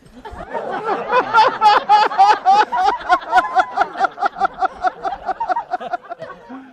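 A person laughing hard and long, a rapid run of high-pitched ha-ha pulses, about five a second.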